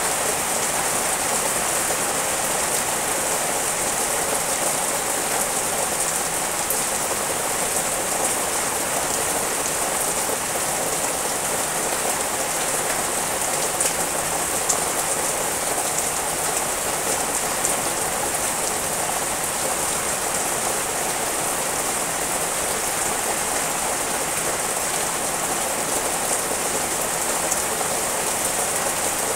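Steady rain falling through dense leafy trees: an even, unbroken hiss with a few sharper taps of single drops now and then.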